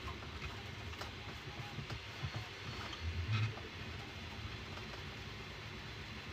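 Bambu Lab A1 Mini 3D printer running a print: its motors and fans give a low, shifting hum with a few light ticks, and there is a louder low swell about three seconds in.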